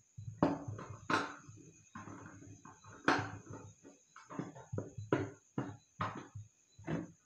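A screwdriver working a screw to fix a plastic lamp holder onto a switchboard: an irregular string of sharp clicks and knocks with short scrapes between them.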